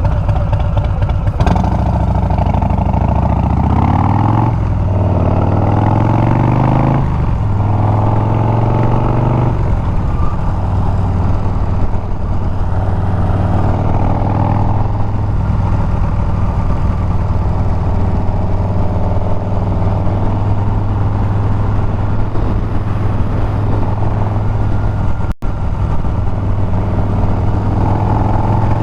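Harley-Davidson Milwaukee-Eight 114 V-twin on Bassani straight pipes, pulling hard up through the gears: the engine note climbs three times, breaking off at each shift. It then settles into a steady cruise. The sound drops out for a split second near the end.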